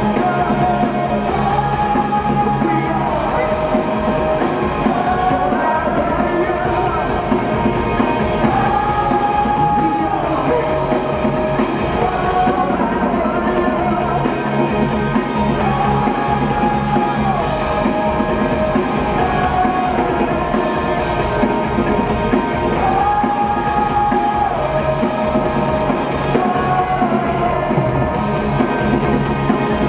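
Live rock band playing a song, with a melodic line that repeats about every seven seconds.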